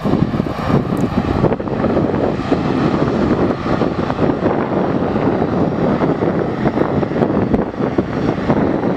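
Airbus A320-family jet airliner's engines running at high thrust on the takeoff roll, heard from behind as a loud, steady rushing rumble.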